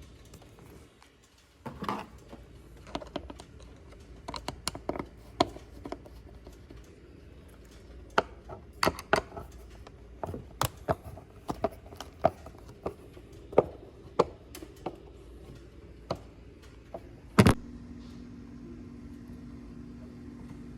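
Scattered sharp clicks and taps of hand tools and plastic parts being handled while the stock air intake is taken apart. A loudest click comes about 17 seconds in, after which a steady low hum begins.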